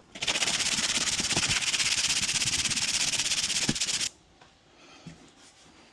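A handheld power tool runs for about four seconds with a fast, buzzing rattle, then stops suddenly.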